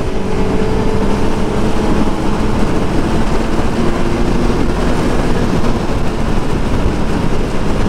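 Kawasaki Z900 with an aftermarket performance exhaust, its inline-four engine running at a steady pitch at high speed under a heavy rush of wind on the microphone.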